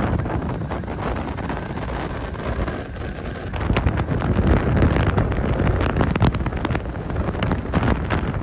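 Gusty wind buffeting the microphone, over waves surging and washing against the boulders of a rock jetty.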